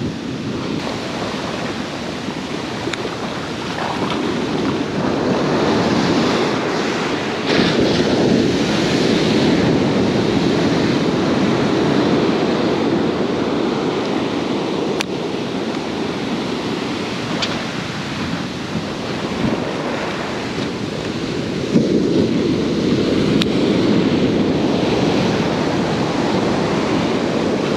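Ocean surf breaking and washing up over the sand in a steady rush that swells louder a few seconds in, with wind buffeting the microphone.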